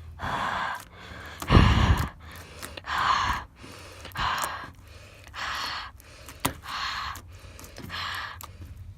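A person breathing heavily: about seven loud, breathy exhales or sighs, roughly one a second, the second one the loudest.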